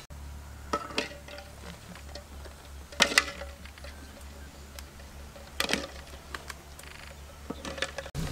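Duck eggs clicking against one another and against a wok as they are lifted from a wicker basket and set into water: a few sharp knocks a second or two apart, over a steady low hum.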